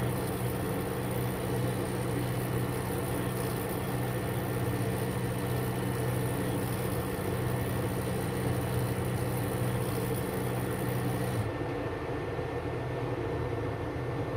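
Steady machine hum from the monochromator and light-source setup of an EQE measurement bench. The high hiss and part of the hum cut off about eleven and a half seconds in.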